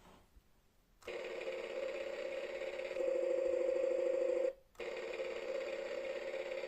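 Matchbox Hero City toy jackhammer's electronic jackhammer sound effect: a steady, buzzing rattle that starts about a second in, gets louder about two seconds later, and breaks off briefly near the middle before starting again.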